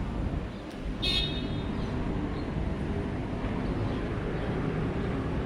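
Steady road-traffic rumble from passing vehicles, with one brief high-pitched squeak about a second in.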